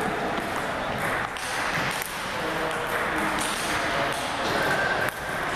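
Table tennis balls clicking sharply off tables and bats at irregular intervals, with voices in the background.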